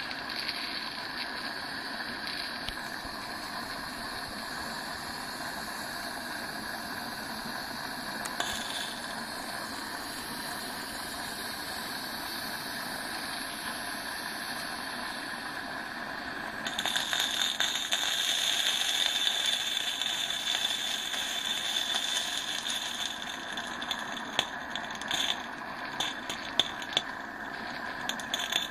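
Accucraft Ruby live-steam model locomotive under steam, hissing steadily. About 17 s in the hiss grows louder, and in the last few seconds a quick irregular ticking and rattling of the mechanism comes in as the wheels are set turning.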